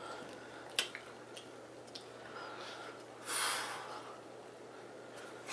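Eating sounds from a man chewing a very spicy chicken wing: a few small wet mouth clicks, then about three seconds in a short hissing breath through his open mouth against the heat.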